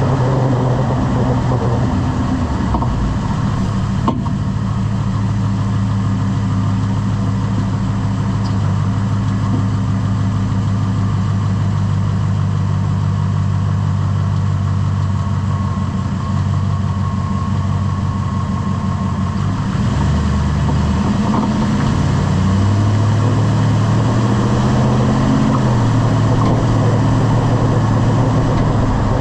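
Lifted pickup truck's engine running steadily, its hum dropping and shifting in pitch about two-thirds of the way through, with a single sharp knock about four seconds in.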